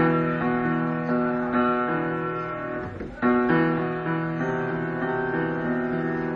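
Electronic keyboard being played: held chords with single melody notes changing over them, and a fresh chord struck about three seconds in.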